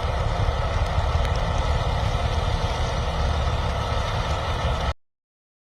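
A motor vehicle's engine running steadily with a low rumble. It cuts off suddenly about five seconds in, leaving silence.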